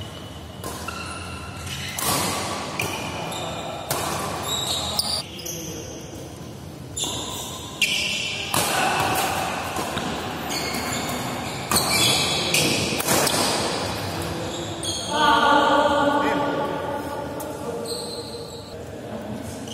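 Doubles badminton rally: sharp racket strikes on the shuttlecock and shoes squeaking on the court mat, echoing in a large hall, with players' voices.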